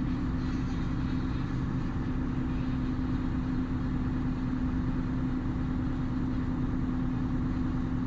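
Engine running steadily at a constant speed, with an unchanging hum.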